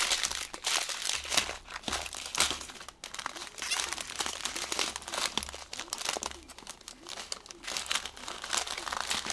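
Small plastic zip-lock bags of resin diamond-painting drills crinkling and rustling as they are handled and shuffled around, with an irregular run of sharp crackles.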